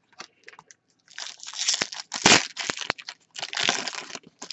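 Crinkling and crackling of a plastic trading card pack wrapper being handled, in a run of irregular bursts starting about a second in.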